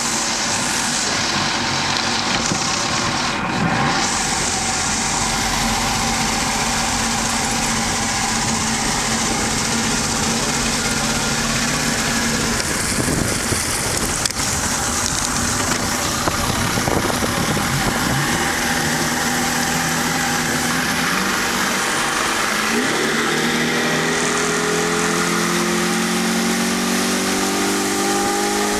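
Outboard motor on a fish-and-ski boat running at low speed over loud wind and water noise. Near the end the throttle opens and the engine note rises steadily as the boat accelerates onto plane.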